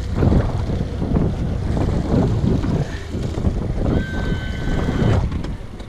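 Wind buffeting the microphone out on open water, with a thin steady tone about four seconds in that lasts about a second.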